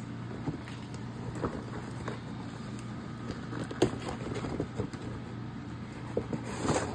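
A cardboard fireworks shell box being handled and opened: scattered light taps and scrapes of cardboard, with a brief louder scrape near the end as the box comes open, over a steady low hum.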